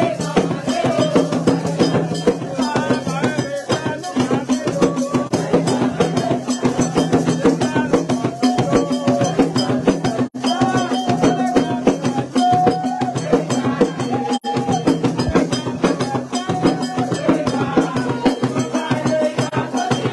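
Vodou ceremonial music: drums and hand percussion keep a dense, steady beat with a struck bell or wood-block part, while a group of voices sings over it.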